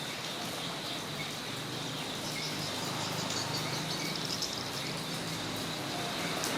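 Steady rain falling on a yard, with a continuous high insect trill and a few bird chirps in the middle.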